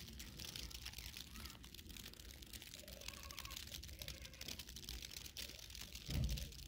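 Faint outdoor ambience in falling snow: a steady low wind rumble on the microphone and a fine hiss with light ticks, with a louder low gust about six seconds in.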